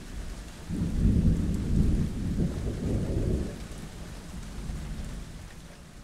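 Rolling thunder over steady rain, an intro sound effect. The deep rumble swells about a second in, stays loud for a couple of seconds, then fades away under the rain's steady hiss.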